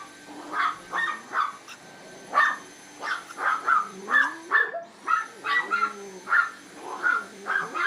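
Chihuahua barking and yapping rapidly at a running cordless Dyson vacuum cleaner, two or three barks a second. Behind it is the vacuum's high motor whine, which cuts out just before five seconds in and spins back up a moment later.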